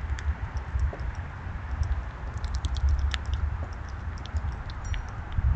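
Black squirrels eating seed right beside the microphone: quick, irregular clicking and crunching as shells are cracked, over a low steady rumble.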